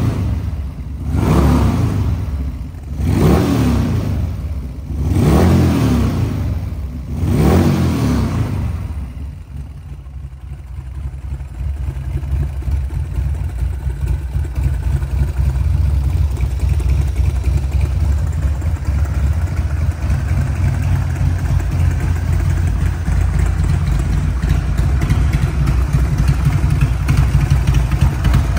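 Buell Cyclone's Harley-Davidson 1200cc V-twin, fitted with a Buell race exhaust, revved with quick throttle blips about every second and a half. About eight seconds in it drops back and settles into a steady idle.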